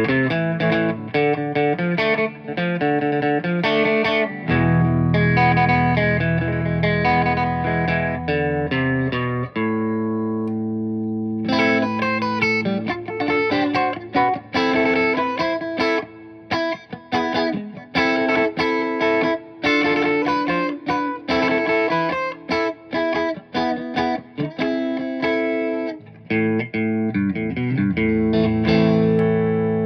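1987 G&L SC-3 electric guitar played through a lightly overdriven amp: a run of picked notes and chords, with one chord left ringing and fading about ten seconds in, then quicker, choppier picking.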